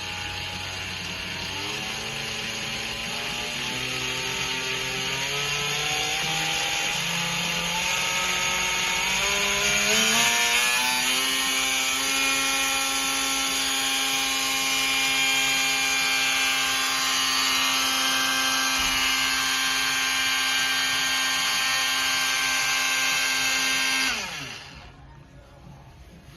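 Makita TM30D cordless oscillating multi-tool running without load. Its whine climbs in pitch in small steps over roughly the first ten seconds, holds steady, then winds down quickly when it is switched off near the end.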